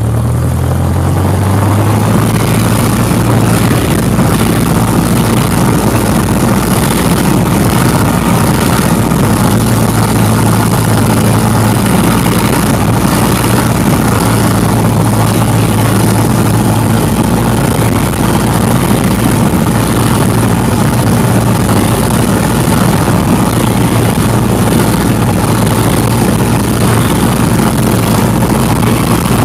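Light single-engine propeller plane's piston engine, heard from inside the cockpit, throttled up in the first second or two and then running loud and steady at high power, with propeller and airflow noise over it.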